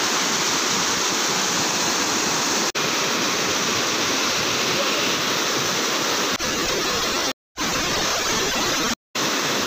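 Loud, steady rush of a waterfall torrent pouring over rocks close to the microphone. The sound cuts out to silence twice near the end.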